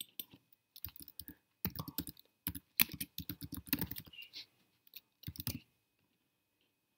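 Typing on a computer keyboard: quick runs of keystroke clicks as a word is entered, stopping about a second and a half before the end.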